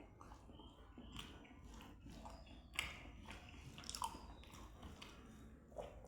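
A person chewing mouthfuls of rice and curry close to the microphone: wet chewing and lip-smacking with short, sharp clicks, loudest about three and four seconds in.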